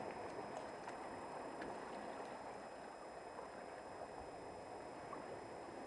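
Faint, steady wash of sea water among rocks, with a few faint clicks.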